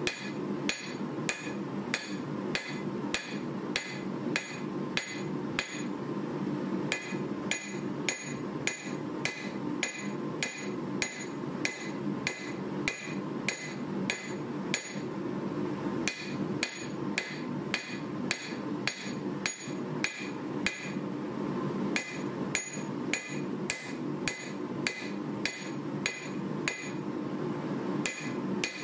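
Hand hammer forging a hot 1095 steel knife blade on an anvil: a steady run of blows, about three a second, each with a short ring from the anvil. The hammering breaks off briefly twice, around the middle and a little later, over a steady low background hum.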